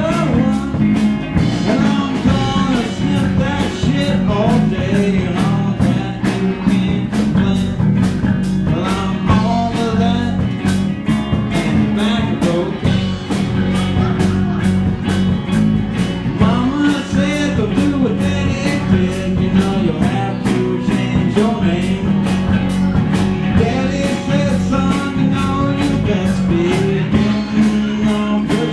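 Live band playing a bluesy rock number: a drum kit keeps a steady beat of about two strokes a second under guitar.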